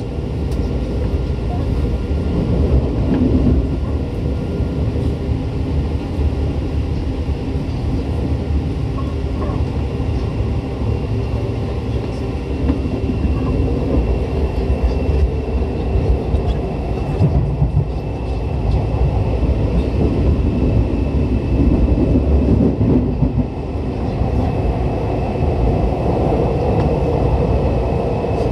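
Tokyu 8500 series electric train running in express service, heard on board: steady wheel and traction motor running noise, with a thin steady high tone over it.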